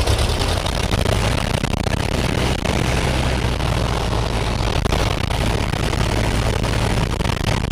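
Cessna 172's piston engine and propeller running steadily, heard from inside the cabin.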